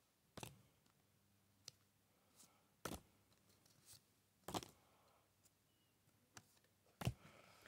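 Pokémon trading cards being flicked one by one from the front of a small stack to the back, each making a faint crisp snap; about five snaps at uneven gaps of a second or more, the last the loudest.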